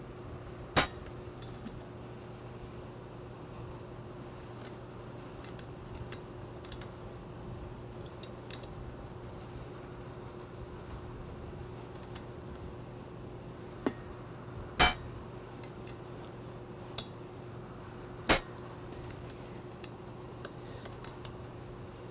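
Steel Allen wrench clinking against the balance beam's metal bracket and bolt as it is turned and reset on the bolt, loosening it. Three sharp ringing clinks, one about a second in and two more a few seconds apart near the end, with faint ticks between, over a steady low hum.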